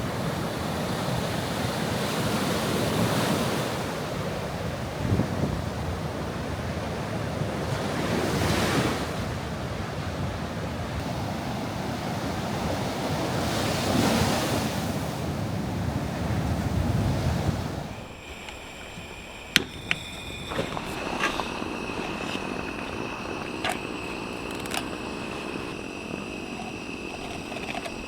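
Wind gusting: a rushing noise that swells every few seconds. About eighteen seconds in it cuts abruptly to a quieter background with a few sharp clicks and a faint steady high whine.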